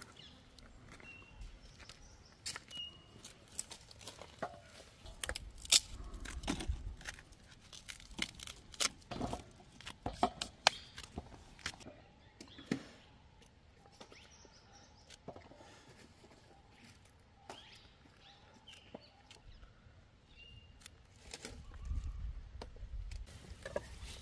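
Scattered sharp clicks and taps of a knife cutting okra pods into pieces over a steel plate, thickest in the middle, with a few short bird chirps.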